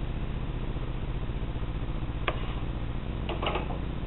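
Pneumatic retractable landing gear of a model airplane cycling, over a steady low hum: one sharp click about two seconds in, then a quick cluster of clicks with a brief hiss near the end.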